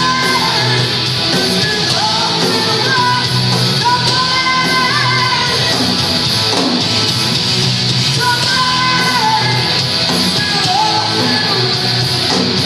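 Live punk rock band playing loud, with electric guitars, drums and sung vocals through the PA, heard from within the crowd.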